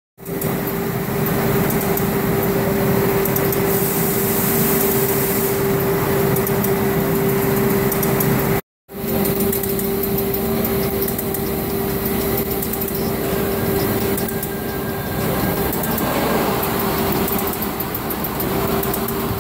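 Hat-factory workshop machinery running: a steady mechanical hum with one constant tone through it. It breaks off for a moment just before halfway and then carries on the same.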